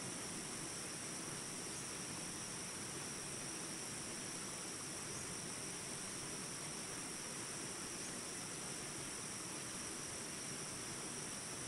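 Flowing water running steadily, with a continuous high insect chorus on top that holds two steady shrill tones.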